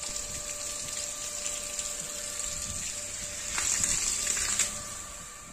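Water running from a hose and splashing across a wet tiled floor: a steady rushing hiss that gets louder about three and a half seconds in, with a faint steady hum underneath.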